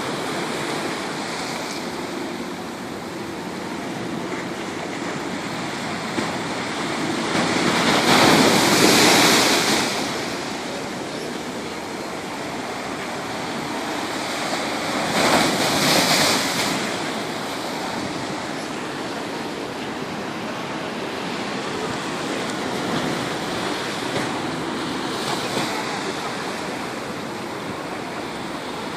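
Stormy sea surf: a steady rush of waves, with two louder waves breaking about eight and fifteen seconds in.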